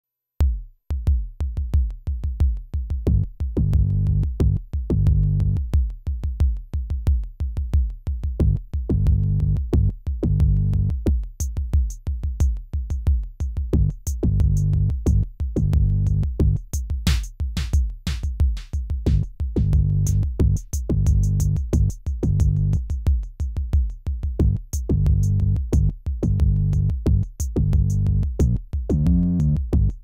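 Electronic background music with a steady drum-machine beat and heavy bass. Crisp high ticks join the beat after about ten seconds.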